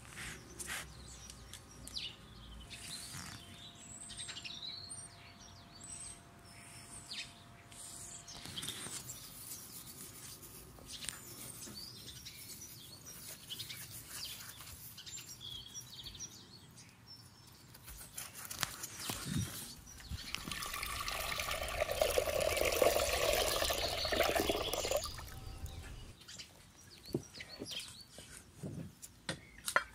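Quiet food-prep sounds: gloved hands handling raw king fish steaks on a metal platter and working tamarind pulp in a glass bowl of water, with faint bird chirps in the background. A few seconds of louder liquid splashing come about two-thirds of the way through.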